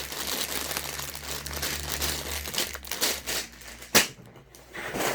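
Plastic Lego parts bags crinkling as they are handled, with one sharp knock about four seconds in.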